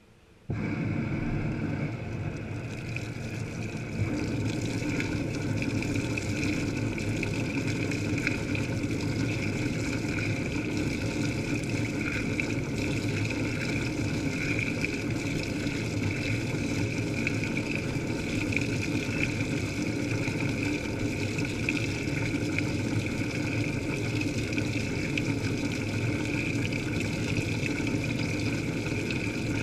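Top-loading washing machine starting up, heard from inside its steel drum: the drum turns while water pours in, a steady mechanical running with splashing water. It starts suddenly about half a second in and gets louder about four seconds in.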